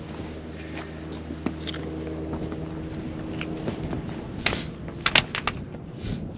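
Hiking boots and hands scuffing and scraping on sandstone during a rock scramble, with a quick cluster of sharp clicks and scrapes about five seconds in. A steady low hum sits under the first couple of seconds and fades out.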